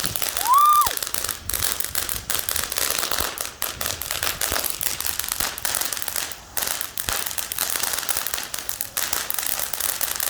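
A firework crackling: a dense, continuous stream of sharp little crackles and pops that stops abruptly just after the end.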